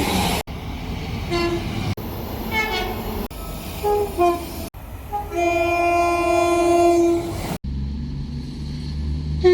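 Train horns in quick succession, cut from clip to clip: several short two-tone blasts, then one long steady horn note lasting about two seconds. After a sudden cut comes a low diesel engine rumble, and another horn starts near the end.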